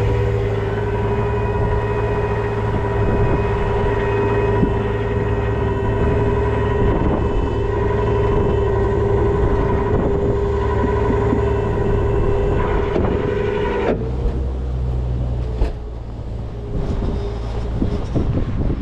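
Rollback tow truck's engine held at steady revs driving the hydraulics, with a constant whine over a low drone, as the bed and winch let a pickup down. About fourteen seconds in the whine cuts off, leaving the engine running lower, with a few sharp knocks.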